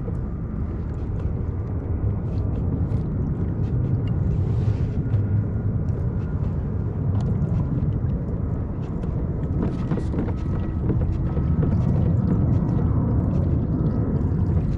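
Steady low rumble of wind buffeting the microphone, with scattered light clicks and ticks throughout.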